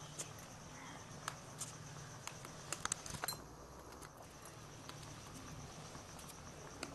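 Faint, scattered little clicks and crackles of a raw duck egg's hard outer shell being chipped and picked off by fingertips, with a quick cluster of them about three seconds in. The shell comes away in small flakes while the inner membrane stays whole.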